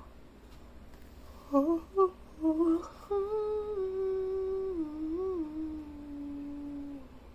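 A person humming: a few short, loud notes, then a long hummed phrase that steps down in pitch and stops shortly before the end.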